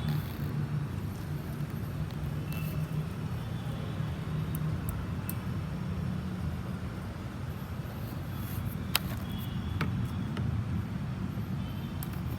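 Split air conditioner outdoor unit running with a steady low hum. A single sharp click comes about nine seconds in.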